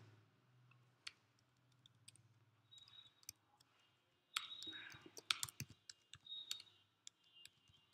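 Faint computer keyboard typing: irregular key clicks as a short line of text is deleted and retyped.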